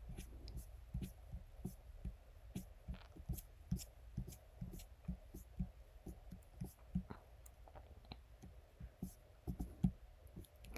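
Faint, irregular small clicks and ticks of a computer mouse being scrolled and clicked, over a low steady hum.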